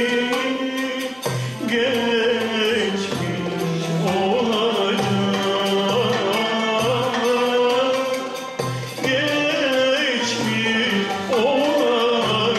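A male solo voice sings a Turkish art-music song in long ornamented phrases, accompanied by an instrumental ensemble with violin over a steady low beat.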